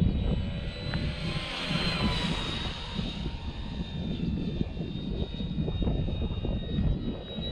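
Electric motor and propeller of a foam RC model plane in flight, a steady high whine that swells and bends slightly in pitch about two seconds in as the plane passes. A low, uneven rumbling noise runs underneath.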